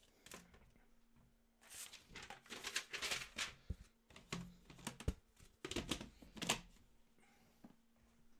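Handling noise: irregular clicks, taps and plastic rustles as a trading card in a clear plastic holder is picked up and things are moved about on the desk. It comes in three clusters, from about a second and a half in, around four and a half seconds, and around six seconds, then dies away.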